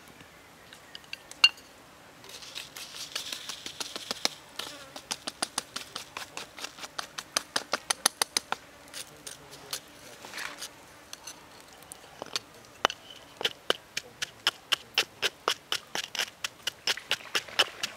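Salt hisses briefly as it is poured from a leaf into a stone mortar. Then a wooden pestle pounds chilies, garlic and salt in the stone mortar with sharp, rapid knocks, about three or four a second.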